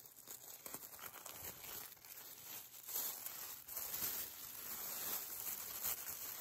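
Thin tissue paper crinkling and rustling as a wrapped package is unsealed and unfolded by hand, getting louder about halfway through.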